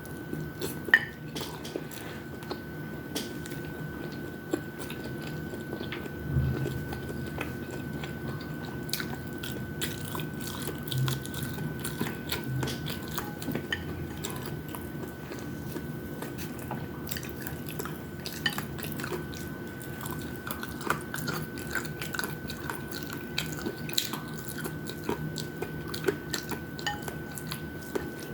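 Close-up mouth sounds of eating fried chicken wings and rice: chewing and biting, with frequent small wet clicks and crunches. A faint steady high tone runs underneath.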